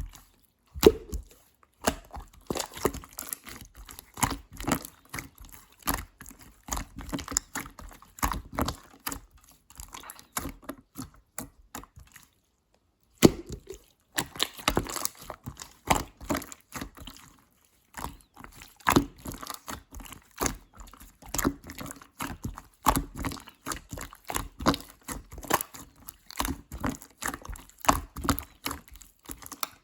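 Clear slime being squished and poked by hand, an irregular run of small wet clicks and pops. The sound breaks off for about a second halfway through.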